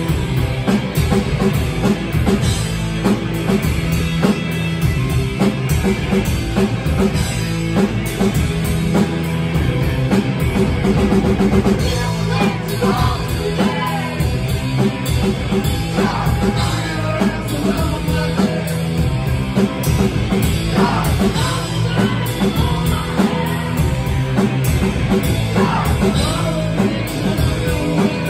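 Punk rock band playing live: distorted electric guitars, bass and drums, with a woman's sung, shouted vocals coming in about twelve seconds in.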